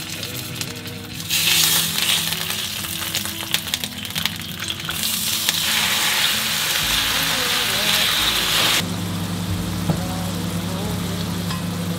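Half-thawed frozen herring fillets sizzling in olive oil in a frying pan, the sizzle starting about a second in and growing louder about halfway through. It stops abruptly near the end, leaving a quieter steady low hum.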